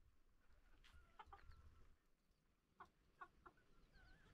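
Chickens clucking faintly while foraging: a few short clucks about a second in and another group around three seconds in.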